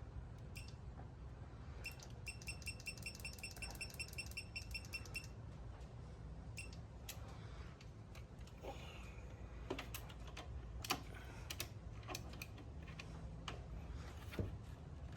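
Faint electronic beeping: one short high beep, then a rapid run of short beeps, about eight a second, lasting some three seconds. Scattered clicks and knocks follow.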